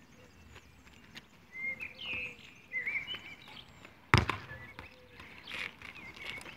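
A football kicked hard once, a single sharp thud about four seconds in.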